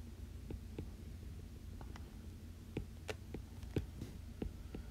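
Stylus tapping and drawing on an iPad's glass screen: irregular light taps, one or two a second, over a low steady hum.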